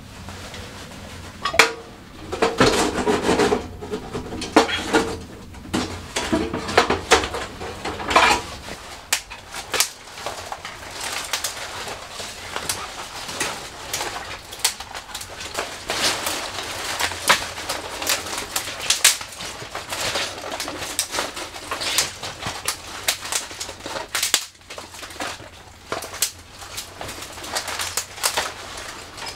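Dry twigs and thin branches being snapped and handled, a dense run of sharp cracks and brushy rustling. A louder, fuller rustle comes in the first several seconds.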